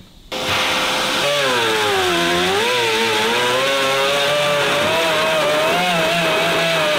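Pneumatic die grinder running a cutter against the steel rim of a fuel tank's sender-unit opening, grinding it out. It starts about half a second in with a loud whine over a steady hiss; the whine drops as the cutter bites and then wavers as the tool is worked around the hole.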